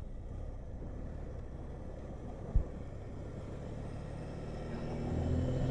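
Motorcycle engine running at low speed through a curve, with a steady low rumble on the helmet-mounted microphone. A single brief knock comes about two and a half seconds in, and the engine grows louder near the end.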